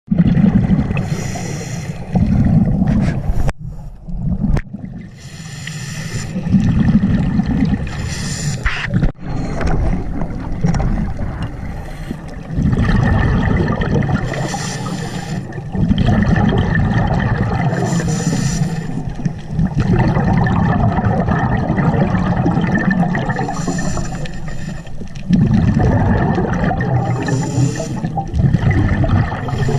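Scuba diver breathing underwater through a regulator: a short hissing inhale about every four seconds, each followed by a longer low burst of exhaled bubbles.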